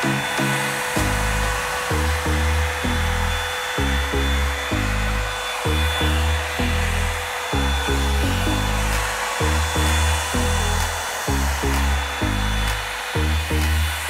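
Revlon One-Step hair dryer brush running steadily, a continuous blowing noise with a thin high whine, under background music with a steady, rhythmic bass line that is the louder part.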